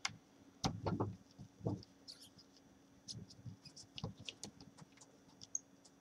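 Quiet, irregular clicks and ticks of a screwdriver turning out the small metal screws on a laptop's LCD side brackets. The busiest cluster comes about a second in.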